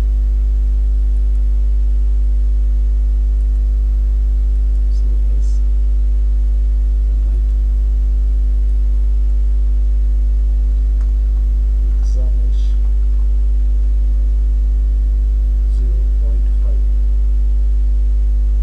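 Loud, steady electrical mains hum at about 50 Hz with a ladder of steady overtones, unchanging throughout. A few faint, brief sounds come and go over it.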